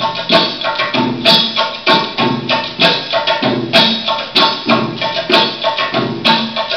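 Percussion-led Middle Eastern dance music in a maqsoum rhythm: a repeating pattern of deep hand-drum strokes and sharp higher strokes over steady held tones.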